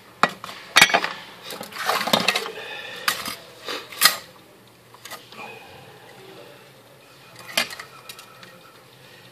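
Small metal tools and parts clinking and clattering on a workbench as they are picked up and handled: a run of sharp clinks with brief ringing, busiest about two seconds in, then a single clink toward the end.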